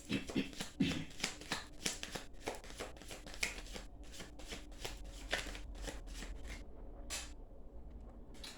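Tarot cards being shuffled by hand: a quick run of papery flicks and snaps for about six and a half seconds, then a couple of single snaps near the end.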